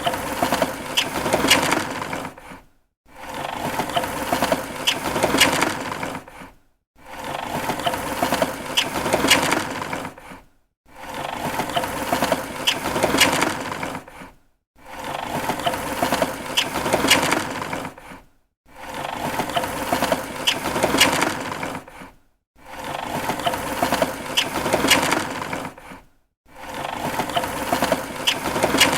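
Plastic window blind slats clattering as a hand is run up them, over and over: about eight runs, each a dense rattle of clicking slats lasting a few seconds, with a short silence between.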